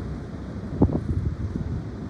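Strong wind gusting against the microphone: a low, uneven rumble with a sharper buffet just under a second in.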